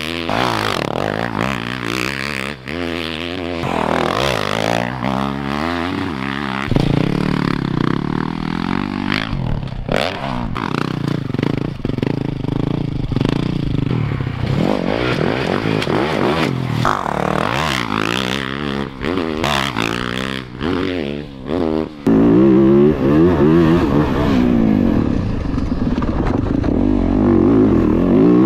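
2023 Yamaha YZ450F's single-cylinder four-stroke engine, with a Yoshimura full exhaust system, ridden hard: its pitch climbs and drops again and again as the throttle is opened and shut through the gears. About twenty seconds in it becomes louder and closer.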